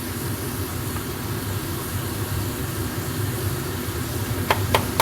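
Pan of mince and capsicum sizzling steadily with sauce just added, with two sharp taps about four and a half seconds in.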